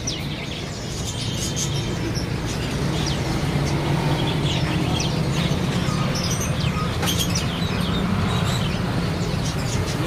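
Many caged songbirds chirping and calling at once, with short, scattered high notes over a steady low rumble.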